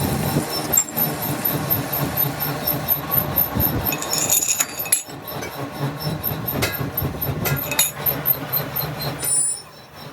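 Metalworking machinery running with a steady low hum and dense rattling, scattered metallic clicks and brief high squeals of metal on metal; it drops away near the end.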